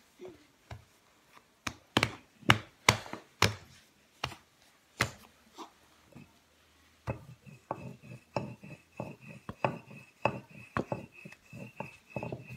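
A child's hands patting and pressing biscuit dough on a floured stone countertop, a run of sharp irregular knocks and slaps, loudest a couple of seconds in and busier in the second half. A faint steady high tone comes in about seven seconds in.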